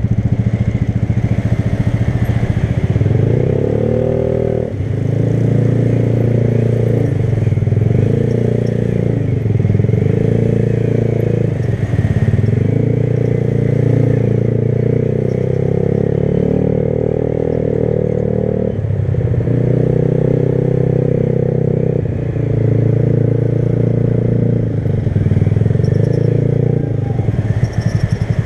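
Motorcycle engine idling with an even low pulse, then pulling away about three seconds in and revving up and down through the gears, with several shifts. It settles back to idle near the end.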